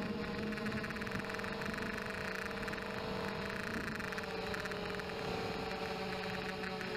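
Blade 200QX mini quadcopter's brushless motors and propellers whining steadily, heard close through the camera mounted on the craft, the several tones shifting in pitch a little as the throttle changes.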